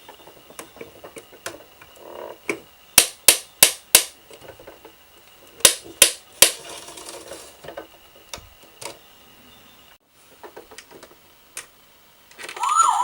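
A series of sharp clicks and taps from a toy fire engine being handled, with two loud runs of three or four clicks a few seconds apart. Near the end the toy's electronic siren sound effect starts, a rapidly wavering wail.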